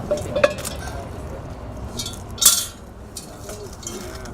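Light clinks and knocks of cookware, with a short, loud scraping burst about two and a half seconds in.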